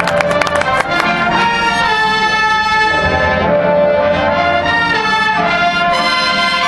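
Marching band brass section playing sustained full chords, with a few drum hits in the first second.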